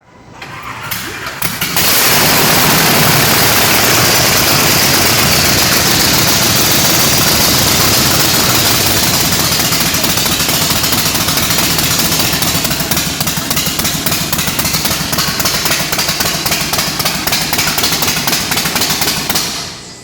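Ford Mustang dragster's V8 engine starting and running loud, coming up to full volume over the first two seconds, then holding steady with a fast, even pulse before dropping away just at the end.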